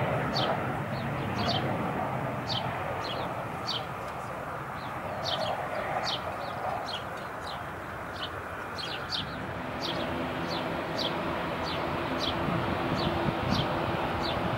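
A small bird giving short, high chirps over and over, about two a second, each one falling in pitch. Underneath runs a steady rumble of distant jet aircraft noise.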